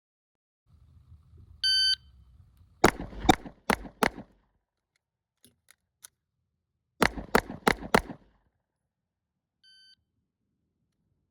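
A shot timer beeps, and about a second later a pistol fires four quick shots. Three faint clicks follow, then a second string of four quick shots, and near the end the timer gives a second, fainter beep.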